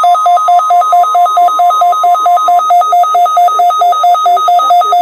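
NOAA Weather Radio warning alarm test tone, one steady pitch, stopping about two and a half seconds in. Over it and after it, a weather radio receiver's alert siren sounds loudly, trilling rapidly back and forth between two pitches: the RadioShack 12-262 set off by the alarm tone.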